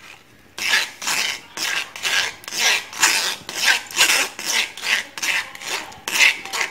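Steel spoon scraping against a stainless mesh strainer, rubbing mango pulp through the sieve in steady back-and-forth strokes, about two to three a second, starting about half a second in.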